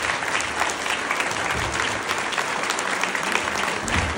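Steady applause from a group of schoolchildren clapping.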